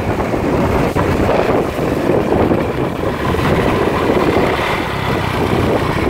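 Wind rushing over the microphone of a moving motorbike, with the bike's running and road noise underneath: a steady, loud rush.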